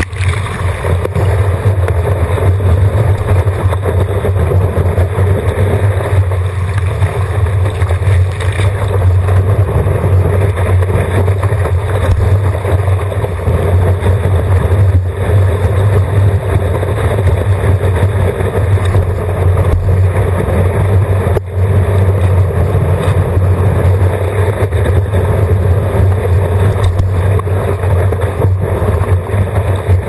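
Water rushing and splashing along a stand-up paddleboard as it rides a small wave, heard through a camera mounted on the board, with a steady low rumble throughout.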